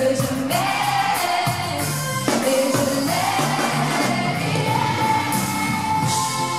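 Live pop song: a female singer holds long sung notes into a microphone over a band with electric guitar and drums.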